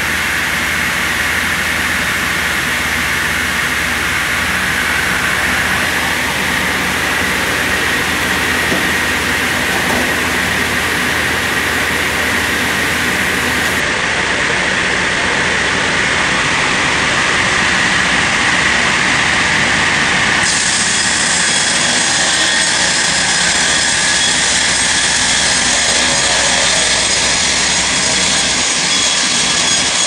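Steady machine noise from a log sawmill line, with the infeed conveyor and multi rip saw motors running. About two-thirds of the way in, the sound shifts and a brighter, higher whine joins as the log is fed toward the saw.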